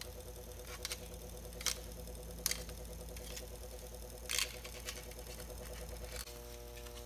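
Induction heater running with a steady electrical hum while aluminum baking-tray scrap melts in its graphite crucible; five short sharp crackles over the first four and a half seconds, and about six seconds in the hum's tone shifts.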